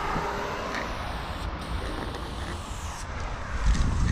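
Aerosol spray paint can hissing as a line is sprayed, with a brief break about a second and a half in, then cutting off about three seconds in. A low rumble runs underneath.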